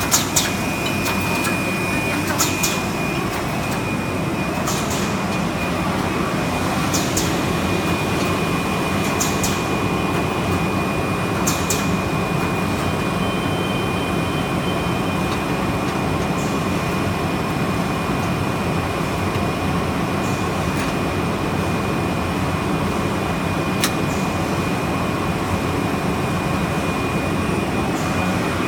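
Automatic rigid box making machine running: a steady mechanical drone with a constant high whine, and short sharp strokes about every two and a quarter seconds through the first twelve seconds, fewer after that.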